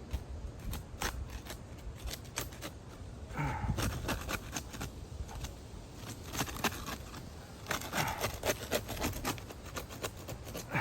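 Asphalt shingles being pried loose: repeated scrapes and sharp clicks as the adhesive seal strips tear free.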